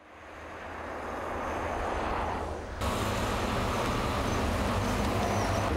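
A car passing on an asphalt road, its tyre noise fading in and swelling as it approaches. About three seconds in the sound changes abruptly to a bus engine running with a steady low hum as the bus passes close by.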